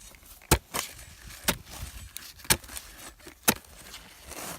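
A digging tool chopping into hard ground: four sharp strikes about a second apart.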